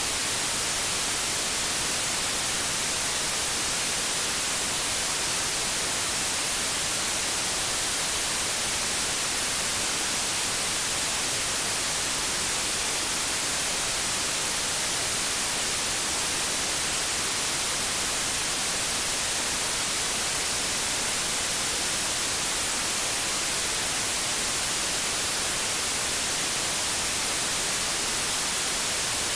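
Steady white noise: an even, unchanging hiss that is brightest in the high end.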